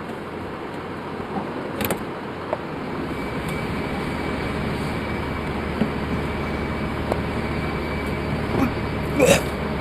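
A steady mechanical rumble, like an engine or machine running, that grows louder over the first three seconds, with a faint high steady whine joining in and a few scattered clicks. A short louder noise comes near the end.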